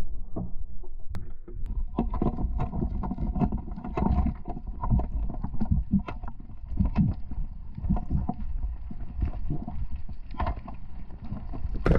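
Muffled water sloshing with many irregular knocks, as picked up by a camera in a waterproof housing in the water.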